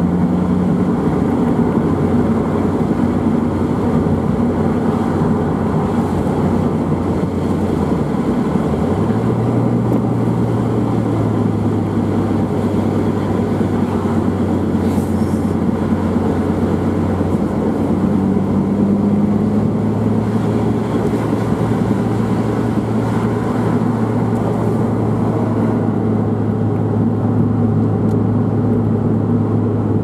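2001 Mazda MX-5's 1.8-litre four-cylinder engine with a Jetex Fortex sport exhaust, heard from inside the car while driving, with a steady drone. Its note steps up in pitch about nine seconds in and stays there.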